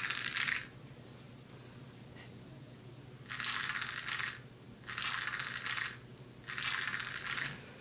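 A small plastic box of Tic Tac mints shaken three times, the mints rattling inside in bursts of about a second each.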